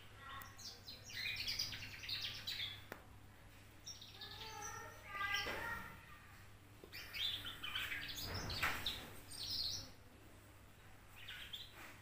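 A two-month-old canary twittering loudly in fast, high warbling phrases (the young bird's 'ngriwik' song), about four bursts of song separated by short pauses.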